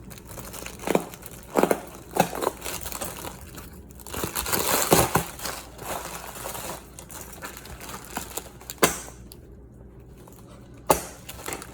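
Packaging being crinkled and torn open by hand, with a longer stretch of crackling about four seconds in and several sharp knocks scattered through it.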